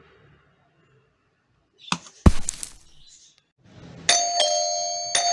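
Added editing sound effects: a click and a loud pop with a short rushing hiss about two seconds in, then from about four seconds a bright metallic bell struck in quick pairs, each strike left ringing.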